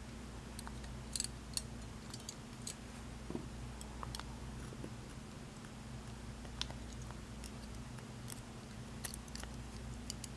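Scattered small clicks and ticks of tiny metal lock parts, pins and springs from a Schlage lock, being handled and set down one at a time, over a steady low hum.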